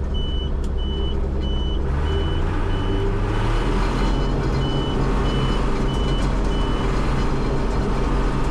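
Combine's backup alarm beeping about twice a second over its diesel engine running, as the machine reverses; the engine note rises about three seconds in, and the beeping stops about seven seconds in.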